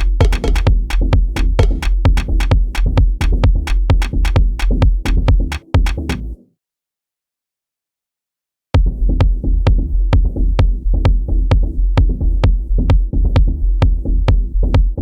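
Electronic drum-machine beat played on Native Instruments Maschine 2: heavy sub-bass kick under rapid sharp high ticks. About six seconds in it cuts to dead silence, then comes back in about two seconds later.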